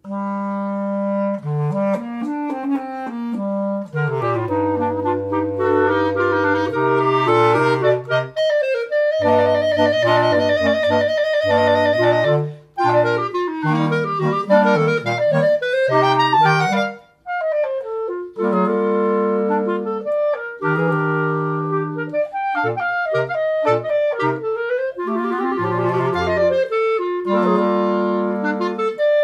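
Clarinet quartet of three clarinets and a bass clarinet playing in harmony, sustained chords and moving lines over low bass-clarinet notes. The music pauses briefly twice, near the middle.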